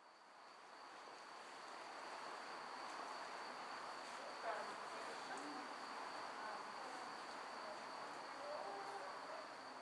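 Faint outdoor ambience: a steady high-pitched insect trill over a soft hiss, fading in over the first couple of seconds, with a few faint brief sounds in the middle.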